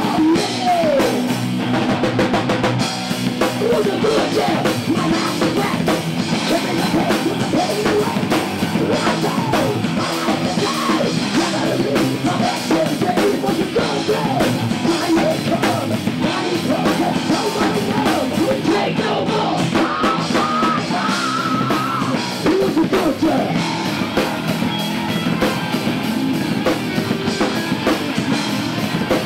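A heavy metal band playing live and loud: distorted electric guitar over a pounding drum kit, continuous throughout.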